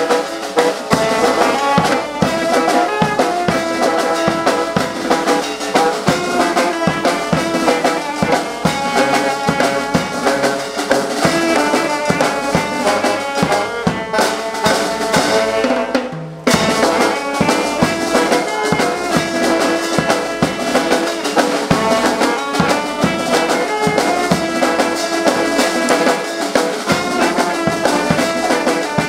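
Street band of saxophones, clarinet, trumpet and drums playing a tune together, with a steady drum beat under the horns. A little past halfway the playing breaks off briefly, then starts up again.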